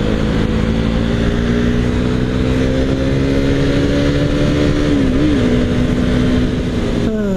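Motorcycle engine at freeway speed, recorded on the bike, under a steady rush of wind and road noise. Its note climbs slowly as it accelerates, wavers briefly about five seconds in, then falls steeply near the end as the bike slows.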